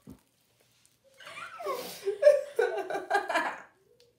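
A person laughing: a rising-and-falling vocal sound about a second in, then a run of short, quick pulses of laughter that stops shortly before the end.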